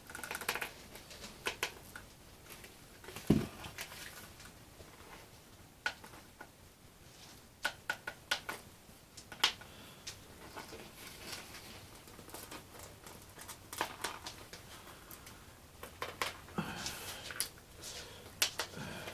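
Small parts and hand tools being handled at a workbench while fitting hinges and control horns to a balsa model airplane: scattered light clicks and taps, a louder knock about three seconds in, and some rustling near the end.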